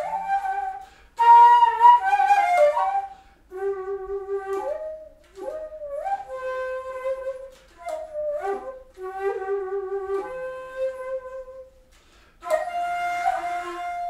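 Flute playing a slow melody in separate phrases, sliding between some of the notes.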